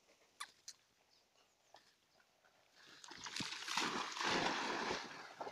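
Spaniel puppies bounding and splashing through shallow pond water. The splashing starts about three seconds in and lasts a couple of seconds.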